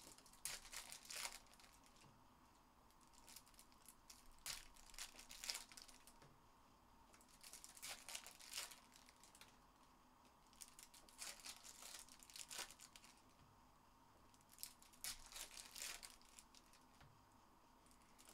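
Foil wrappers of 2022 Topps Chrome Formula One hobby packs crinkling as they are handled and torn open by hand. The crinkling comes in about five bursts of a second or two each, with short pauses between.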